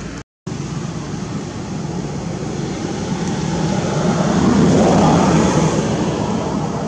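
Steady low rumbling noise that swells louder about four to five seconds in and then eases off, with a brief gap of silence just after the start.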